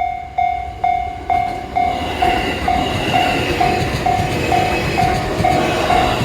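Japanese level-crossing warning bell ringing a repeated bell tone about twice a second. From about two seconds in, an E531 series electric train runs over the crossing, and its wheel and running noise swells and partly covers the bell.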